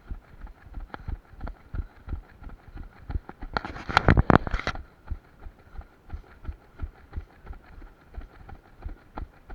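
Running footsteps on a trail, a steady rhythm of dull thuds about two a second, with a loud rough burst of scuffing noise lasting about a second near the middle.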